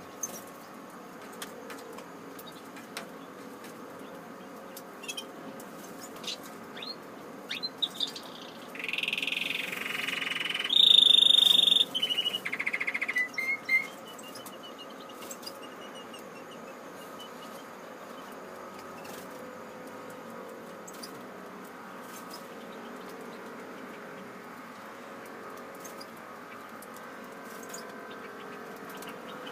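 Aviary goldfinches and canaries chirping and singing: a burst of whistled song starts about nine seconds in and is loudest around eleven seconds, with scattered faint clicks and chirps before and after.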